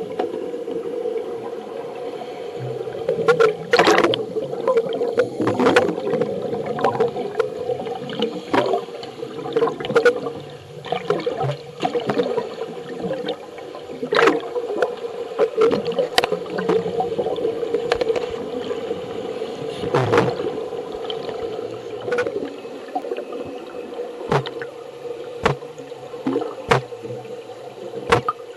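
Underwater sound of scuba divers' exhaled air: bubbles gurgling and bursting in irregular puffs every second or few as bubble rings are blown, over a steady hum.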